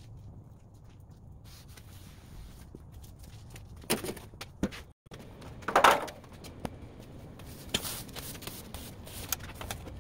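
Scattered knocks, clicks and clatters of metal tools being handled on a steel sheet; the loudest come about four and six seconds in.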